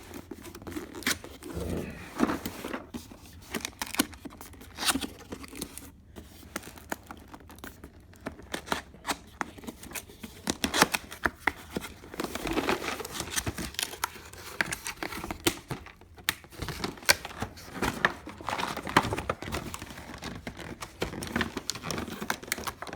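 Cardboard box and plastic packaging of a drill bit set being opened and handled by hand: irregular crinkling and rustling with many small clicks and knocks.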